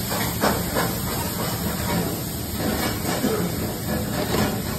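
Steady hissing background noise of a commercial kitchen, with a few faint knocks.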